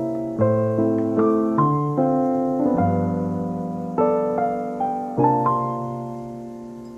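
Background piano music: a gentle melody of separate notes, each struck and left to fade.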